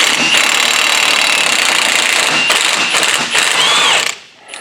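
A Milwaukee 1/2-inch impact wrench hammering on a 35 mm front axle nut, loosening it. It runs in a loud burst of about four seconds with two short breaks, then stops suddenly.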